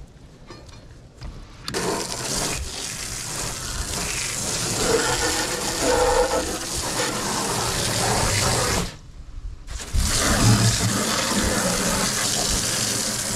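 Water gushing steadily from a hose, starting about two seconds in, cutting off for about a second well into the stretch, then running again.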